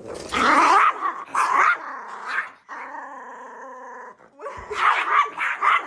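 Dogs growling and barking at each other as they start to fight, in two loud, choppy spells with a steady held whine-like tone between them.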